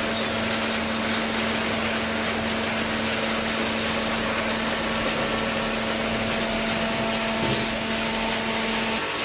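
Horizontal hydraulic waste paper baler running: a steady mechanical din with a constant hum that cuts off near the end.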